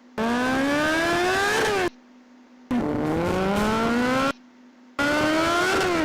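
Recording of a big bike (large motorcycle) engine revving in three throttle blips. Each rev is a rising engine note that dips as it ends, and each starts and stops abruptly.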